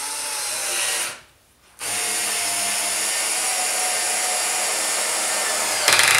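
RYOBI TEK4 cordless screwdriver driving a screw into two boards with no pilot hole, its clutch set at 10. The motor runs for about a second, stops briefly, then runs steadily for about four seconds, ending in a short, louder clatter.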